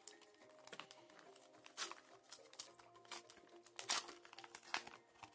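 A Pokémon card pack wrapper being torn open and crinkled by hand: a few short, sharp rustles, the loudest about two seconds and four seconds in, over faint background music.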